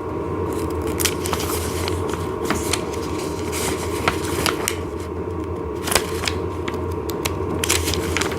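Rustling and scattered light clicks of paper and parts being handled, over a steady low hum.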